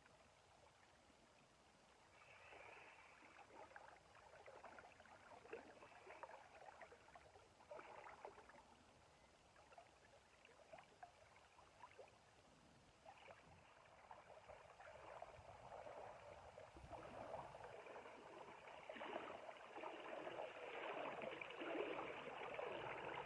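Water splashing and gurgling, faint at first and growing louder over the last several seconds.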